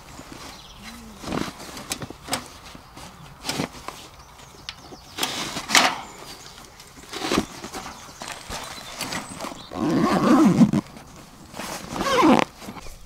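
Knocks and clanks of a stainless steel Atago firepit's bowl and grill being packed into a fabric carry bag, with cloth rustling. Longer rasping sounds come about two-thirds of the way in and again near the end, as the bag is closed.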